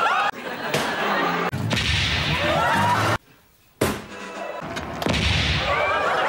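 Repeated sharp bangs from an old Ford Cortina backfiring, and a fist thumping the side of a television set, with voices or laughter between the bangs.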